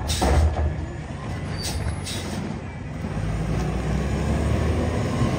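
Natural-gas-powered automated side-loader garbage truck at the curb: a sudden burst of noise at the start, two short air hisses about two seconds in, then the engine running louder as the truck moves off.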